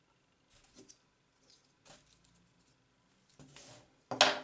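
A Kiev 88 medium-format SLR body being handled and turned over by hand: scattered small clicks and rubbing of its metal parts, then one loud clunk near the end.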